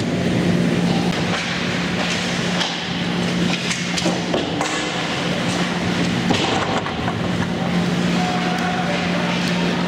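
Ice hockey play in an indoor rink: skates on the ice and scattered clacks of sticks and puck, over a steady low hum.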